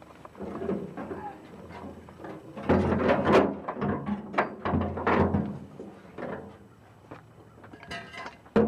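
Irregular knocks, scrapes and rattles of a fuel tank and its mounting hardware being worked up into place under a pickup truck, busiest in the middle, with one sharp knock near the end.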